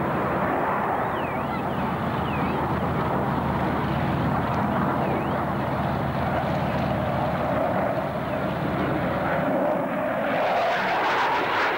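Jet noise from the twin RB199 turbofan engines of a Tornado F3 during a display flypast. It is a steady rushing sound that grows louder and harsher about ten seconds in as the jet sweeps close by.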